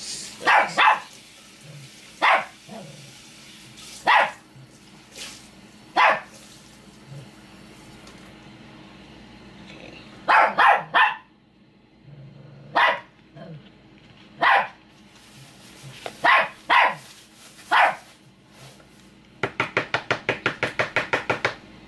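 A dog barking, in single barks and quick runs of two or three every couple of seconds. Near the end comes a fast, even run of about fifteen short ticks over two seconds.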